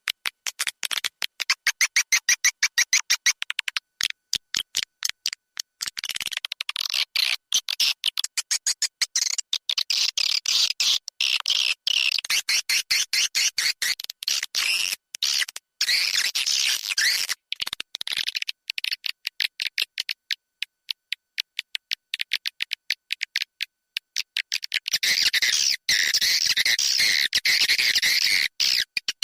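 Swiftlet lure-call recording: rapid trains of bird clicks, several a second, with stretches of dense high chirping twitter layered over them.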